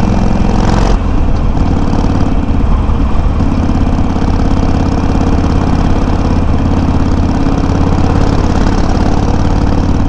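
Harley-Davidson Sportster 883's air-cooled V-twin running through Customer slip-on mufflers with low baffles, picked up by a microphone mounted on the bike. The engine note changes about a second in, then holds steady.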